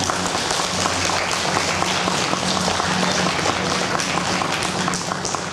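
Audience applauding: a dense round of hand clapping that thins to scattered separate claps near the end.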